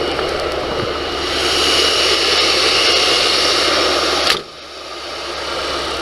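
Van engine running just after being started, with a dense, hissy noise. About four seconds in the sound drops suddenly, then builds back up.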